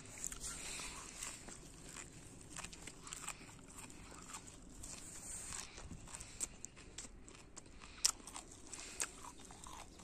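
Faint, irregular crunching and small clicks close to the microphone, over a light steady outdoor hiss.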